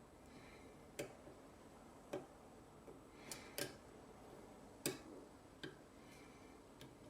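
Small, sharp metallic clicks of a lock pick working the pin stacks of a six-pin Euro cylinder, about seven of them at uneven intervals, with faint scraping between.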